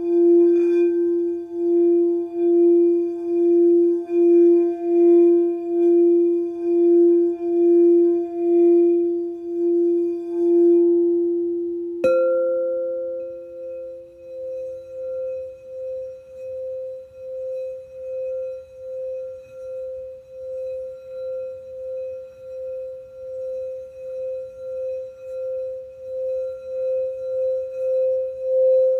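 Singing bowls played one after another. A lower-pitched bowl is sung around the rim with an even, wavering hum. About twelve seconds in, a higher-pitched bowl is struck and then sung with the same pulsing, while the lower bowl rings away over a few seconds.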